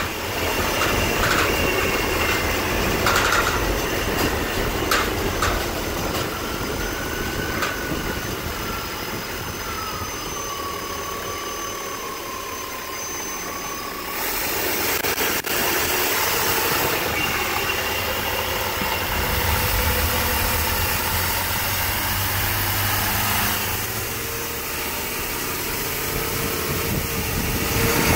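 Chevy 350 small-block V8 running at idle, heard close up through the bus's open engine cover, with a thin wavering whine over it for several seconds in the first half.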